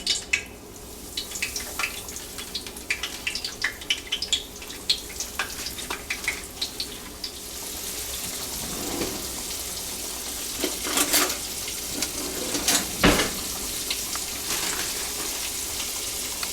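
Battered fish pieces frying in hot oil in a cast iron pan. Crackling pops over the first half thicken into a steady sizzling hiss about halfway through. A few sharper clicks and one loud knock come near the end.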